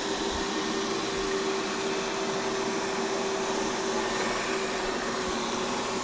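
Xiaomi robot vacuum cleaner running as it drives along: the steady whir of its suction fan and motors, with a constant hum.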